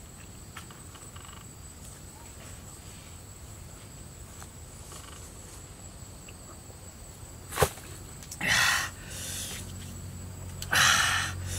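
Faint gulps as a man drinks from a green coconut, then one sharp knock about seven and a half seconds in as the coconut is set down. Loud, breathy gasps and exhalations follow after the drink, the loudest near the end.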